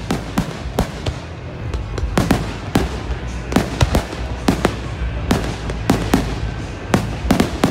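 Aerial fireworks bursting overhead: a rapid, irregular series of sharp bangs and pops over a steady low rumble.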